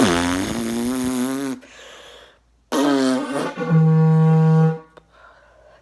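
Fake fart noise made by buzzing the lips while blowing into a hand-held object, done twice. The first buzz lasts about a second and a half with a wavering pitch. The second starts wobbly and settles into a steady, brass-like held note before cutting off.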